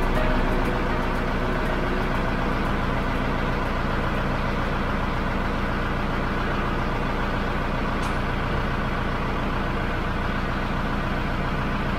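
Diesel engine of a 1990 Case 2140 vineyard tractor running steadily while its hydraulic three-point hitch is raised and lowered, freshly repaired after its valve had stuck.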